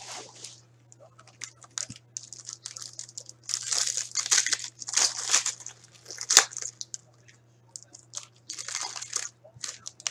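Hand-torn foil wrapper of a hockey card pack being pulled open and crinkled, in irregular bursts of crackling. The longest burst comes about four to five seconds in, a sharp crackle a little after six seconds, and another burst near the end.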